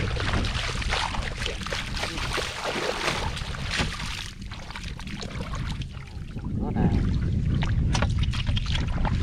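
Floodwater sloshing and splashing, with wind rumbling on the microphone. The sound drops somewhat in the middle and picks up again.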